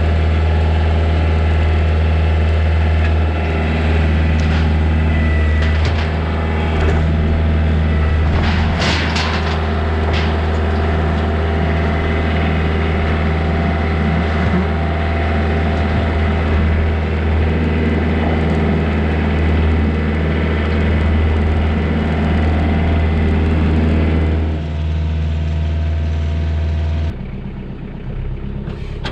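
Tractor engine running steadily with a strong low hum. Lumber knocks and clatters about nine seconds in as the pile is dragged off the trailer. The engine sound drops quieter near the end.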